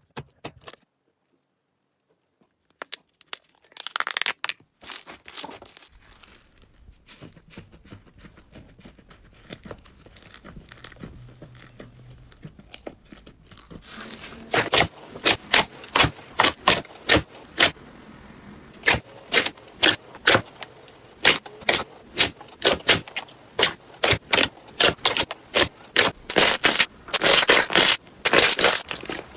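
Slime packed with foam beads being squeezed and worked by hand, crackling and popping in quick sharp clicks. The clicks are scattered at first and come thick and fast from about halfway.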